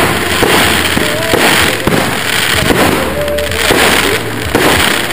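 An aerial fireworks display: shells launch and burst one after another with dense crackling and sharp bangs throughout. Music plays underneath.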